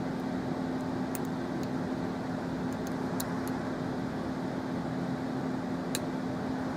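Steady mechanical hum with one low tone, with a few faint, sharp ticks from a hook pick working the pins of a euro cylinder lock.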